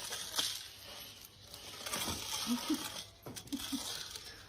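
Light scuffling, crinkling and small clicks and knocks as a dachshund climbs stairs with a plastic hula hoop, the hoop and paws scraping and tapping on the steps. A few faint, short low sounds come about halfway through.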